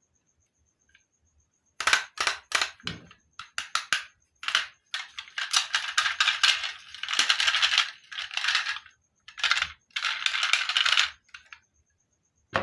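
Marbles rolling and clattering down a wooden marble run, in quick rattling runs of clicks that begin about two seconds in, with one sharp click at the end.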